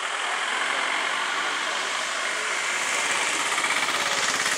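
A motor vehicle's engine running close by, a steady, finely pulsing sound.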